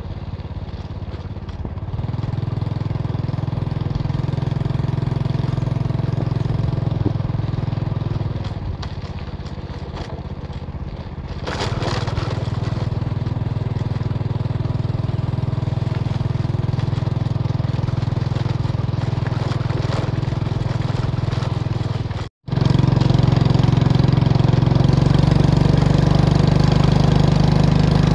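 Small motorcycle engine running as the bike rides along. It picks up about two seconds in, eases off for a few seconds, then picks up again near the middle. The sound drops out for an instant about three-quarters of the way through.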